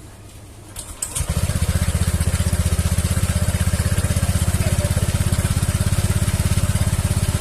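Honda Vario 150 scooter's single-cylinder engine starting about a second in, then idling steadily and smoothly with an even pulsing beat. There is no squeal from the CVT: the squealing has been cured by the CVT repair.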